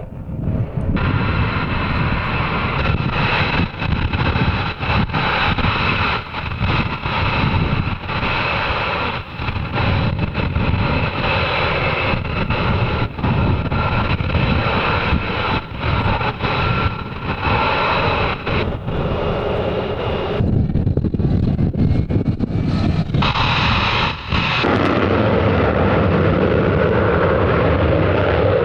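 Military jet aircraft engines running loud, a high steady whine over a rough, crackling noise. Near the end the whine drops away, leaving a steadier, lower rush.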